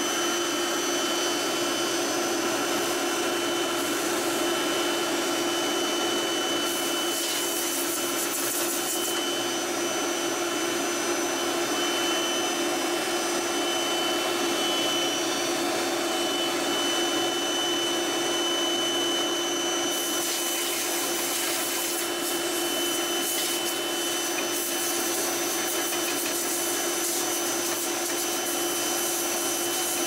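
Powerful shop vacuum running steadily with a constant hum, sucking soot out of an oil furnace heat exchanger through a clean-out. A compressed-air gun on long tubing adds a high hiss of blasting air about seven seconds in for two seconds, and again from about twenty seconds on.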